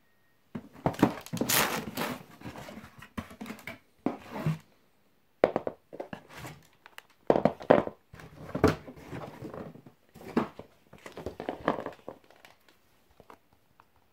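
Cardboard shoebox and paper packing handled by hand: irregular rustling and crinkling, broken by several sharp knocks as the box is opened and the football boots are taken out.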